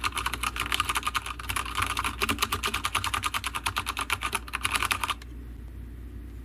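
Fast typing on a mechanical keyboard: a rapid, continuous run of keystrokes that stops about five seconds in.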